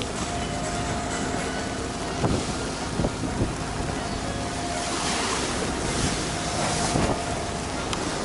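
Strong wind buffeting the microphone on a sailing yacht at sea, with waves washing and slapping against the hull and a wash of spray rising about two-thirds of the way in. Several dull thumps sound as the boat meets the waves, over a steady low hum.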